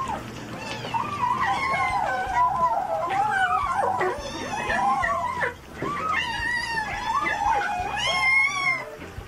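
Several kittens mewing at once: overlapping high, wavering cries that rise and fall in pitch, with a short gap about halfway through.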